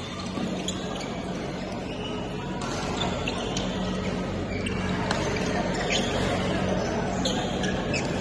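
Badminton rally in a sports hall: scattered sharp racket hits on the shuttlecock over a steady hum and background hall noise.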